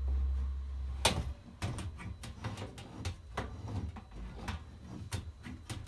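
Sheet-metal blower assembly being slid back into an air handler's cabinet: a sharp metal knock about a second in, then a run of irregular clicks and knocks as it is worked into place. A low rumble stops at the first knock.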